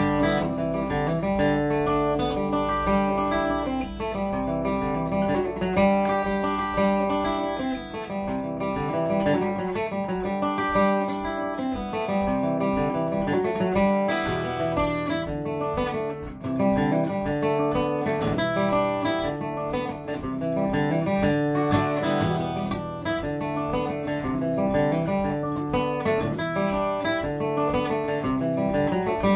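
Solo steel-string acoustic guitar playing an Irish-style fiddle tune, a steady stream of quick notes.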